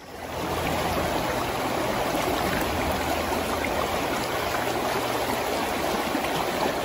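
River rapids rushing: a loud, steady wash of whitewater that swells up in the first half second and then holds.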